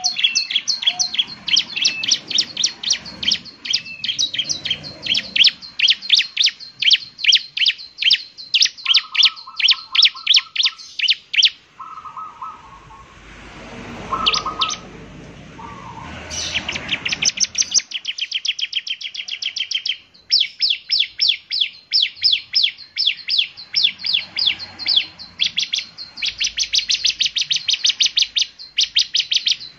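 Bar-winged prinia (ciblek) singing: fast runs of sharp, high chipping notes, several a second. The song breaks off twice for a few seconds, with a few short lower trills in the first break.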